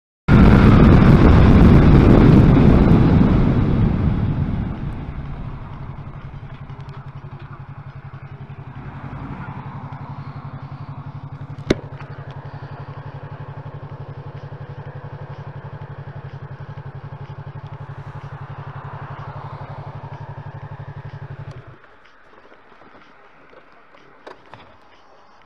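Motorcycle slowing to a stop: loud wind and riding noise at first that fades over a few seconds, then the engine idling steadily until it is switched off about 22 seconds in. A single sharp click about 12 seconds in.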